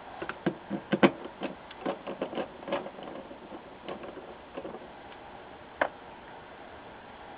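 Hand screwdriver driving screws that hold a monitor power supply board to its sheet-metal chassis: a run of small clicks and taps, dense for the first three seconds, then a few scattered clicks, one sharp one near the end.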